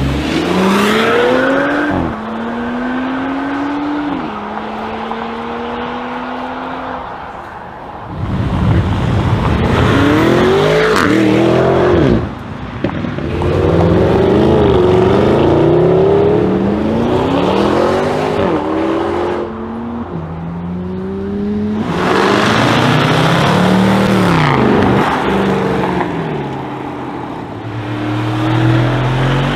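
Powerful car engines accelerating hard in a run of separate clips. Each engine note climbs in pitch and then drops back at a gear change, over and over.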